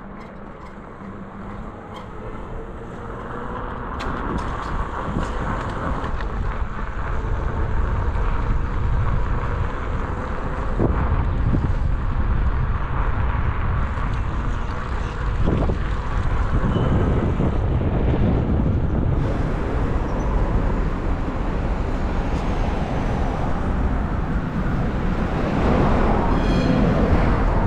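Wind on the microphone mixed with street traffic noise, growing louder over the first several seconds.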